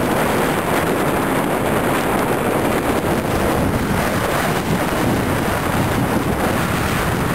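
Loud, steady wind noise buffeting the microphone of a camera riding along on a moving bicycle.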